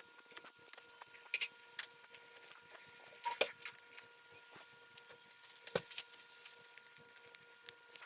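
Scattered light clicks and taps of small tools and parts being handled, a few sharper ones standing out, over a faint steady high whine.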